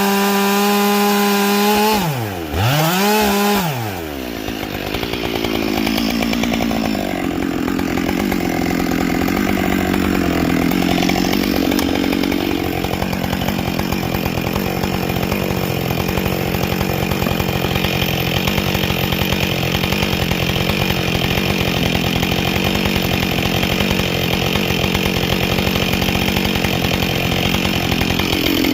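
Husqvarna 572 XP two-stroke chainsaw with a carbide-tipped chain running at high revs. About two seconds in the revs drop sharply and climb back, then the engine settles to a lower, steady pitch under load as the chain cuts through wood.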